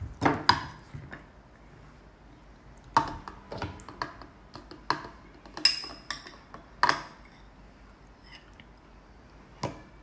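Metal spoon clinking against a plate and a glass bowl as melon chunks are scooped across, about eight sharp clinks spaced irregularly.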